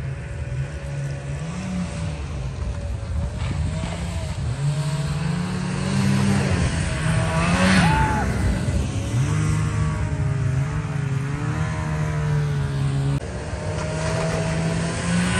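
Snowmobile engines running, their pitch rising and falling as the riders throttle up and back off. One snowmobile passes close by about eight seconds in, the loudest moment, and the engines then fall back into the distance.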